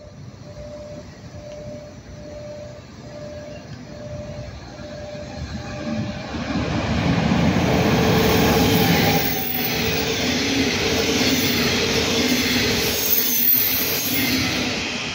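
Regional express of double-deck coaches hauled by a Class 146 electric locomotive approaching and passing close by: faint at first, it swells from about six seconds in to a loud rumble of wheels on rail with a steady electric hum from the locomotive's traction equipment.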